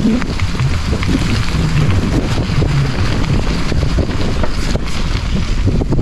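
Mountain bike being ridden over a dirt trail, with wind buffeting the microphone in a steady, heavy low rumble. Small clicks and rattles run through it.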